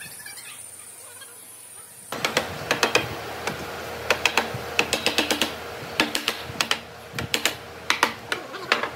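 A mallet tapping a pine rail down into place on a wooden frame: quick, light knocks in irregular clusters, starting about two seconds in.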